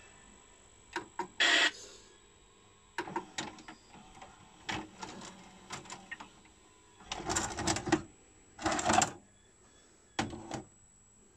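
Akai VS-G440 VHS video recorder's tape transport at work: button clicks, then a series of clicks and short whirring, clunking bursts as the mechanism stops and ejects the VHS cassette. A final clunk comes near the end.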